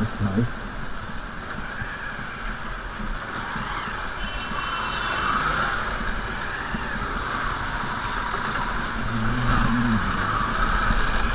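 A vehicle driving along a rough ghat road, with a steady road and running noise.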